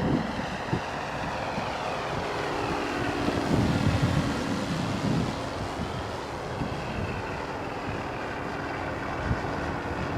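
FreeWing P-51D Mustang RC plane flying past at about three-quarter throttle, its motor, propeller and onboard engine-sound module giving a steady drone, with wind buffeting the microphone.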